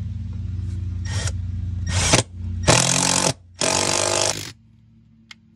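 Power drill boring a hole through the wall for the cable. The motor runs steadily while the bit bites in four loud grinding bursts, and then the drill stops about four and a half seconds in.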